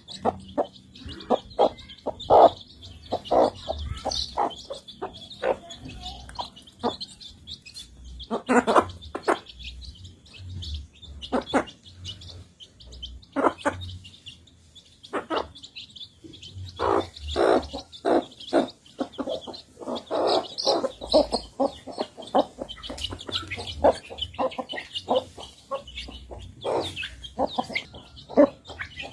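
Chickens feeding: a busy run of short, sharp pecks and clucks in irregular quick succession, with high chirps throughout.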